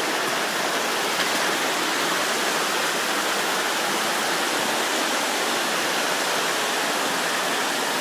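A rocky river rushing steadily over rapids.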